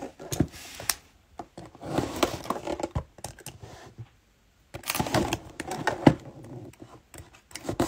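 Cardboard booster box of Prizm Monopoly trading cards being handled and turned over: scraping, rustling and tapping of the cardboard in short spells, with a quiet pause about halfway through.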